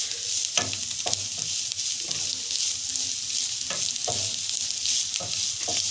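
Chopped bitter gourd peelings and onion sizzling in oil in a nonstick pan, stirred with a wooden spatula that scrapes the pan at irregular intervals, about once a second.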